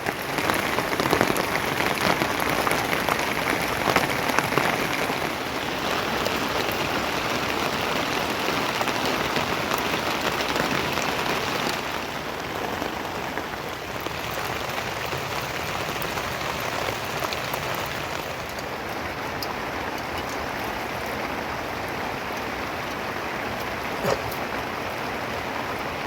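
Steady rain falling, with many small drops ticking on nearby surfaces. It is heavier at first and eases slightly about halfway through.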